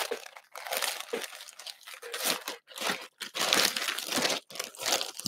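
Clear plastic poly bag crinkling and rustling in irregular bursts as a jersey is handled inside it.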